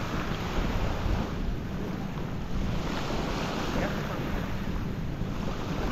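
Small waves washing up onto a sandy, shelly beach, the wash swelling and fading, with wind rumbling on the microphone.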